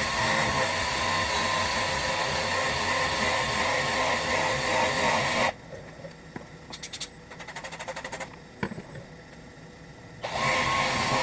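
Workpro 12-volt cordless 3-inch polisher running steadily with a motor whine, then stopping abruptly about halfway through. In the pause there is a run of quick light clicks, and the polisher starts up again near the end.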